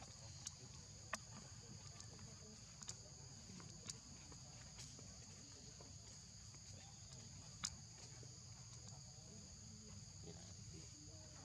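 Faint, steady chorus of insects holding two high-pitched tones, with a handful of sharp clicks scattered through it, the loudest about two-thirds of the way in.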